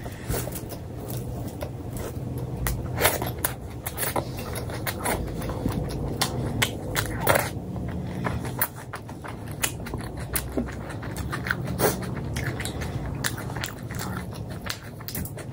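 Close-miked eating: a person bites and chews paratha flatbread, with irregular wet mouth clicks and smacks over a steady low background hum.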